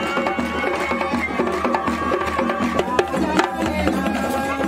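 Traditional West African hand-drum music: djembe-style drums struck in a fast, dense rhythm, with a voice singing long held, bending notes over the drumming.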